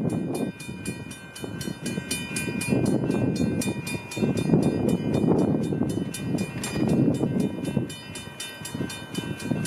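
Railroad crossing bell ringing with rapid, even strikes as the crossing signals activate and the gate arms come down, over gusting wind on the microphone.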